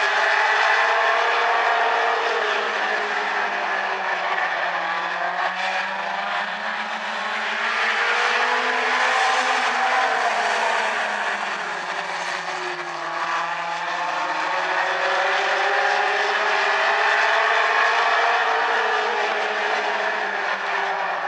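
A pack of mini stock race cars running at racing speed, several engine notes overlapping. Their pitch rises and falls together as the cars accelerate and lift.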